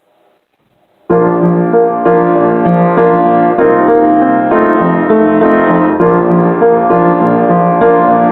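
Piano playing the introduction to a worship song, starting about a second in after a short silence, with steady chords.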